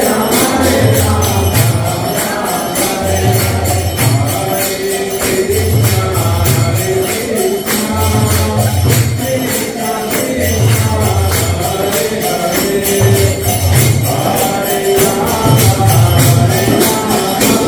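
Devotional kirtan music: singing over hand cymbals (kartals) clashing in a steady quick beat, with a deep pulse that returns about every two and a half seconds.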